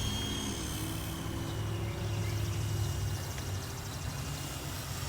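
Small electric RC helicopter (WLtoys V912) in flight: a steady motor whine over a low rotor drone, the pitch drifting slightly.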